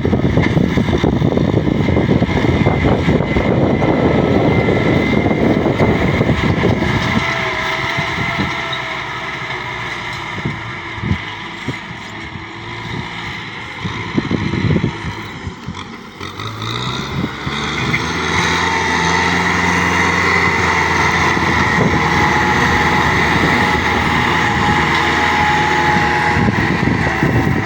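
Heavy farm machinery engine running under load with a rough, dense noise. It drops back for a stretch, then revs up about two-thirds of the way through and holds a steady higher tone with a whine.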